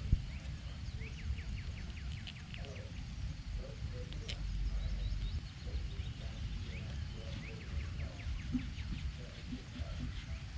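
Small birds chirping: many short, high chirps that drop quickly in pitch, coming in loose runs, over a steady low rumble.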